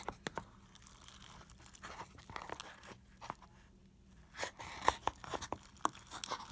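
Slime being squished and pressed by hand, making irregular sticky pops and crackles. There is a quieter stretch in the middle, and the pops pick up again near the end.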